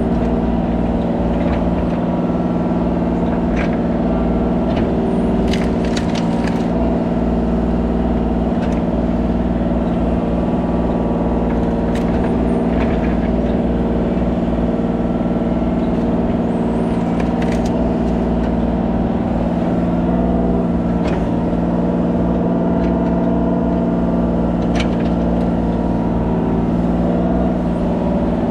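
Kubota mini excavator's diesel engine running steadily at an even speed, with occasional short clanks and knocks.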